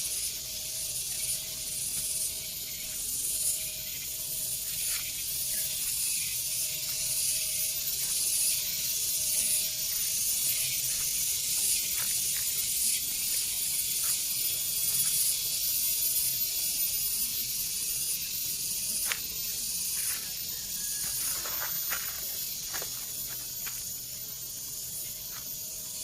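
Rice-field ambience: a steady high hiss with a faint steady hum underneath, and a scatter of short clicks in the last several seconds.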